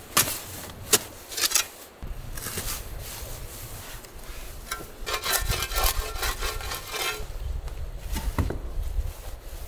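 Steel shovel digging into sandy, gravelly soil: three sharp strikes of the blade in the first second and a half, then rough scraping as dirt is scooped out of the hole.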